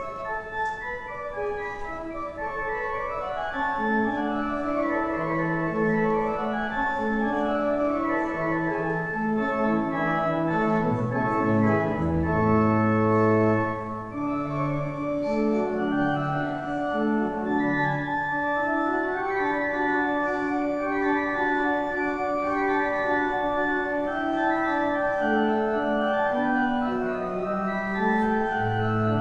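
Organ playing a slow piece: a melody in held notes over sustained chords, with deep bass notes coming in a few seconds in.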